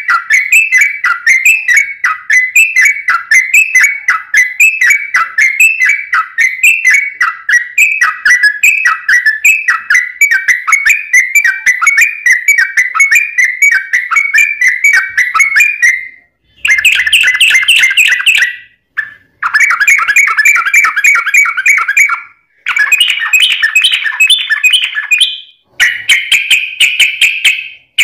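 Yellow-vented bulbul singing a fast, unbroken stream of rapid repeated notes for about sixteen seconds. It then sings several shorter bursts of the same quick notes, separated by brief pauses.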